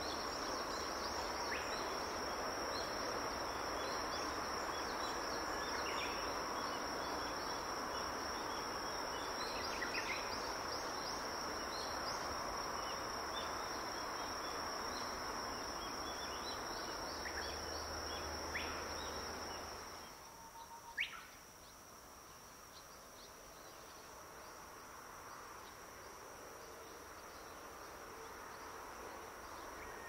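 Outdoor woodland ambience: a steady high-pitched insect drone over a noisy background hiss, with short bird chirps now and then. The background hiss drops away sharply about two-thirds of the way through, leaving the insect drone and a few chirps.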